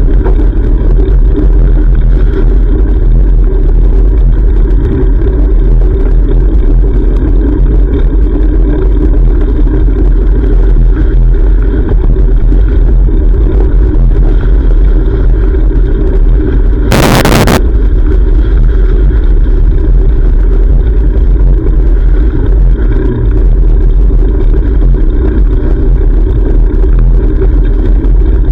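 Loud, steady low rumble of wind buffeting a GoPro microphone while cycling, with road traffic under it. A sudden half-second burst of noise cuts through about seventeen seconds in.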